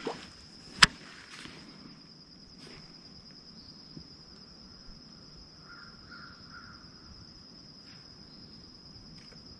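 Steady high-pitched insect drone, with one sharp click about a second in and a few faint crow caws near the middle.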